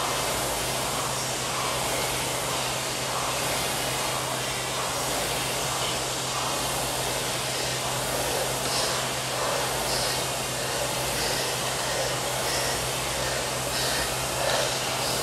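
Air rowing machine's fan flywheel whirring steadily under hard rowing, rising and falling in a regular rhythm. Short puffs, likely breathing, come through in the second half.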